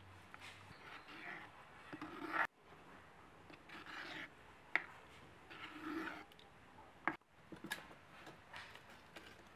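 A ladle stirring a thin coconut-milk curry in a clay pot: repeated soft swishes of liquid and the ladle scraping the pot, with a few sharp clicks.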